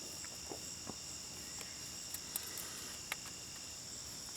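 Steady, high-pitched chorus of insects such as crickets, with a few faint clicks.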